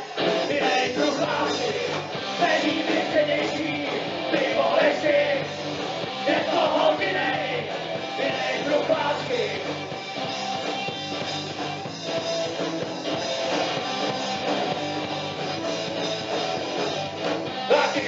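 Rock band playing live through a PA: electric guitars, bass guitar and drums, with a singer's vocals in places.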